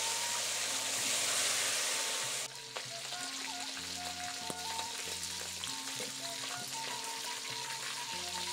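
Fish deep-frying in hot oil in a wok, sizzling loudly for about the first two and a half seconds and then more quietly as the fried fish is lifted out with a wire strainer. Sundanese kecapi suling music (zither and bamboo flute) plays underneath.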